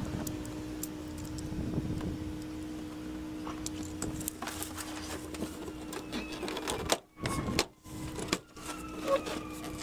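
Door trim panel of a 1992 Honda Civic hatchback being pulled off the door: handling and rubbing at first, then a quick series of sharp clicks and snaps in the last few seconds as the panel's plastic retaining clips pop loose. A steady low hum runs underneath.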